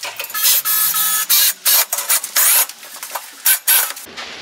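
Power screwdriver run in short, irregular bursts, driving stainless steel screws into a steel door frame.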